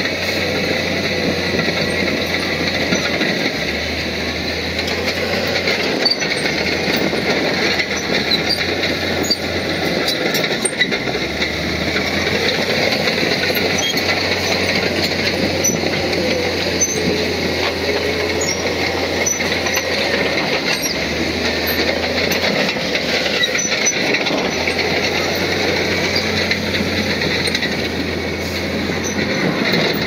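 Crawler bulldozer working, its diesel engine running under load with the pitch slowly rising and falling, over a continuous metallic clatter from the steel tracks.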